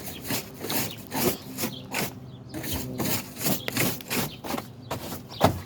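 Repeated short rubbing strokes against the van's dirty lift gate, about two to three a second.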